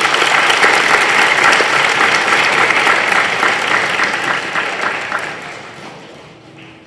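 A crowd of schoolchildren and adults applauding, a steady patter of many hands clapping that dies away over the last two seconds.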